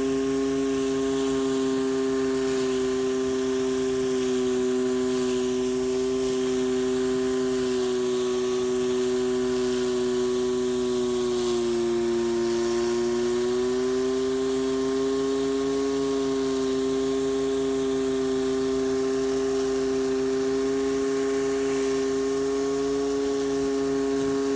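Pressure washer running with a Black & Decker surface cleaner spraying water onto concrete: a steady machine whine over a hiss of spray. The whine dips slightly in pitch about halfway through, then recovers.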